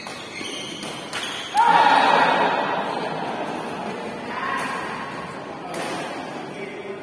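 A few sharp hits, then about a second and a half in a sudden burst of a crowd shouting and cheering in a large hall, which dies down over the next few seconds.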